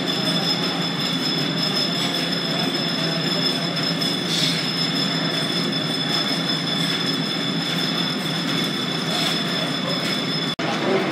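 Belt-driven line-shaft machinery running: flat belts turning over pulleys and large spur gears meshing, a steady mechanical clatter and rumble with a thin, steady high whine. The sound drops out for an instant near the end.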